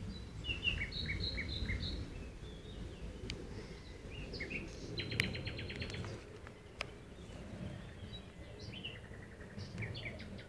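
Several birds chirping and calling, including a quick rapid trill about halfway through, over a steady low rumble, with a few sharp clicks.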